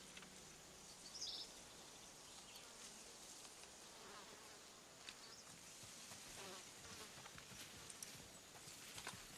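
Faint field ambience of flies buzzing, with a brief high chirp about a second in and a few soft ticks.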